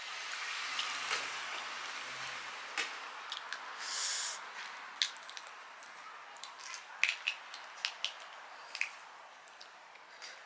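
Hands cracking and peeling boiled crawfish: a run of sharp crackles and clicks from the shells, thickest in the second half. Before that comes breathy exhaling through an open mouth, and a short hiss about four seconds in.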